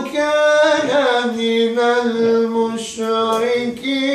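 A man reciting the Qur'an in melodic tajwid style, holding long drawn-out notes of about a second each, with short ornamented turns in pitch between them.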